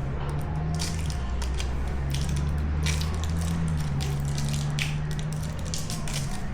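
Irregular clicks and rattles of a new Snap-on torque wrench being handled and taken out of its packaging, over a steady low hum.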